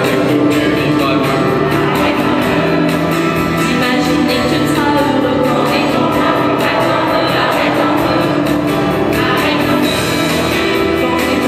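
Music with singing: a song with sustained sung notes over instrumental accompaniment.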